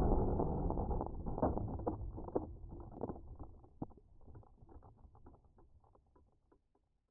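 Crackling, hissing noise from the FPV drone's recorded audio feed, full of scattered clicks, fading steadily away to silence after about six seconds.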